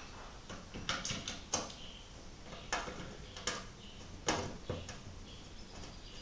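Irregular small clicks and scrapes of M4 screws and a screwdriver being worked into tapped holes, fixing a plastic enclosure to a base plate.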